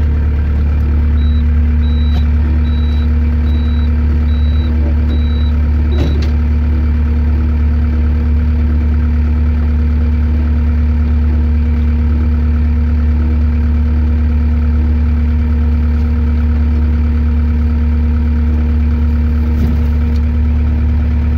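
Skid loader engine running steadily, heard from the operator's seat. A high beep repeats about three times every two seconds for the first six seconds, and a single knock comes about six seconds in.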